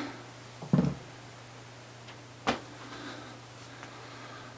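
Hands handling a moulded plastic guitar case: a dull knock about a second in and a sharp click about two and a half seconds in, over a steady low hum.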